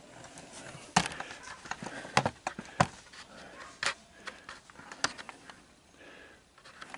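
Irregular sharp clicks and knocks of hand tools and metal parts being handled on a workbench, about five clear ones with smaller taps between.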